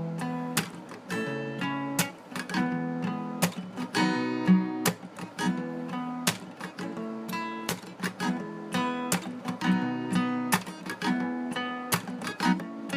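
Acoustic guitar strumming chords in a steady rhythm: an instrumental break in a song.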